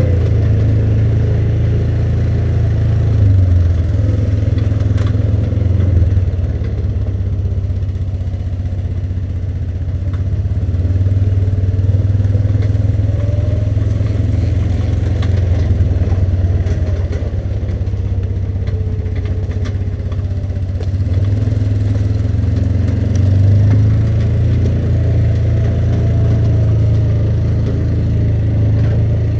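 ATV engine running at low, changing throttle while riding slowly along a rough woods trail, a steady low hum with a higher whine that rises and falls several times.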